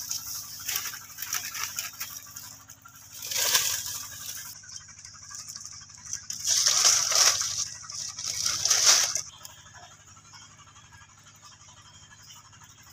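Dry banana leaves rustling and crackling in several bursts, as a monkey moves through them. The loudest stretch runs from about six and a half to nine seconds in.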